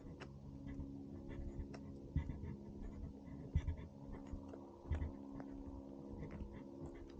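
Footsteps crunching on a gravel trail, with irregular low thumps from the camera being carried, over a faint steady hum.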